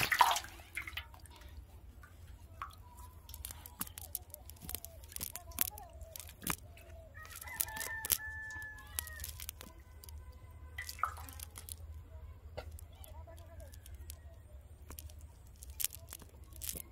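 A splash as a fish drops into a metal basin of water at the start, then scattered clicks and rustles of a nylon fishing net being picked over by hand. Chickens call in the background twice near the middle.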